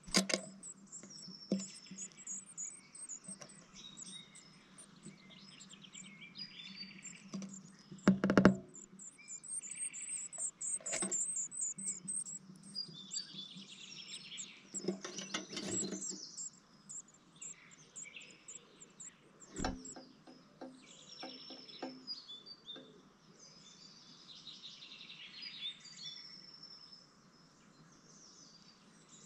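Blue tit nestlings inside a wooden nest box giving high-pitched begging chirps and trills throughout. A few loud knocks and scrapes come from the adult blue tit moving at the entrance and inside the box, the loudest about eight seconds in, with others around sixteen and twenty seconds.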